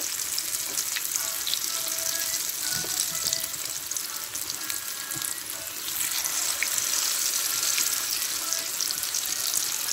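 Grated potato fritters frying in hot oil in a pan: a steady sizzle with fine crackling. It eases a little around the middle, then picks up again.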